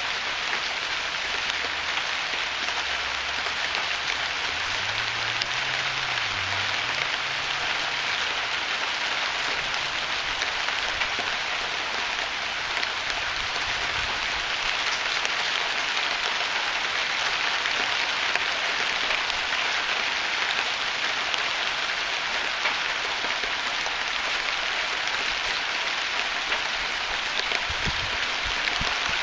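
Heavy rain pouring down, a dense, steady hiss of drops hitting the ground.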